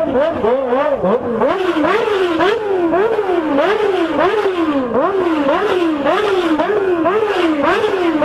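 A vehicle engine revved over and over in quick blips, its pitch rising and falling about twice a second.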